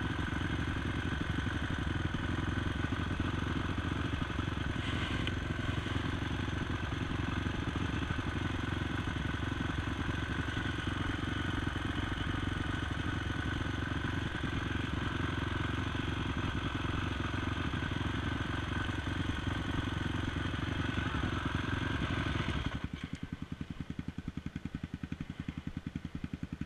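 Honda TRX450 ATV's single-cylinder four-stroke engine running at a steady throttle on a dirt trail. About 23 seconds in the throttle comes off and it drops to a softer, evenly pulsing low-revving beat.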